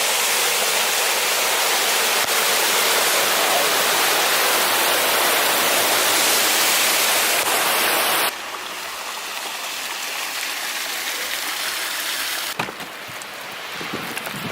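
Storm runoff rushing loudly in a steady flow. About eight seconds in it cuts off suddenly to a quieter steady hiss of rain, with a few light knocks near the end.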